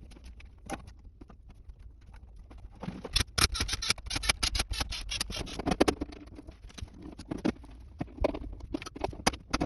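Quick runs of small clicks and knocks as a bus bar is fitted into a consumer unit's RCBOs, metal comb and plastic parts being pushed into place and handled. The clatter is densest a few seconds in, then thins to scattered clicks.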